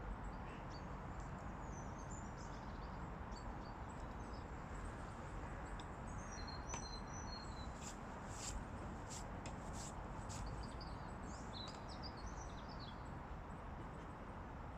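Small birds chirping and calling over a steady low outdoor background rumble, with a quick run of sharp high ticks about two-thirds of the way through.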